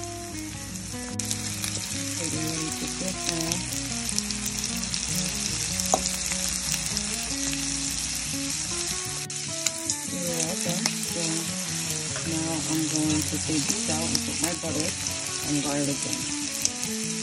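Seasoned shell-on shrimp sizzling and crackling as they fry in oil in a pan, with low held notes of background music underneath.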